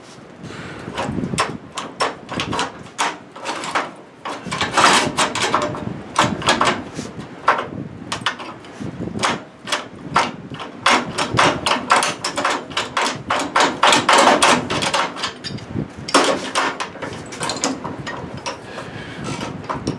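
Repeated, irregular metal clanks and knocks as a pipe wrench grips and works a partly cut strip of steel to break it off a hay baler rail.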